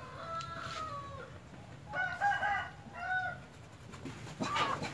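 A rooster crowing: a long, drawn-out crow that falls away at its end, then another crow about two seconds in, and a short sharp chicken call near the end.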